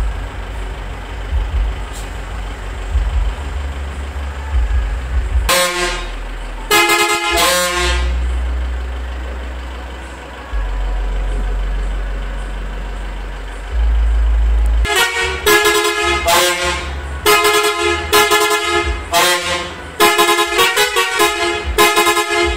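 Minibus engine running with a steady low rumble while its air horns give three short blasts about six to eight seconds in. From about fifteen seconds, a quick run of loud horn blasts follows, changing pitch from blast to blast.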